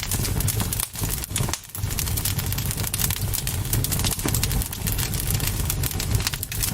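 Campfire crackling: a thick run of small, sharp, irregular pops and snaps over a steady low rumble.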